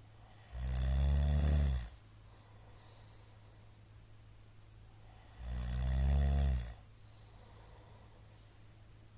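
Middle-aged man snoring loudly: two long, rough snores about five seconds apart, each lasting a little over a second, with soft breaths between them.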